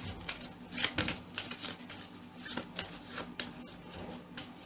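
A deck of tarot cards being shuffled by hand: a run of quick, irregular card flicks and soft slaps.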